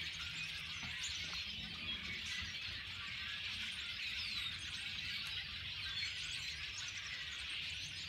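A large flock of birds in bare treetops all calling at once: a dense, continuous chorus of overlapping chirps and whistles that never lets up.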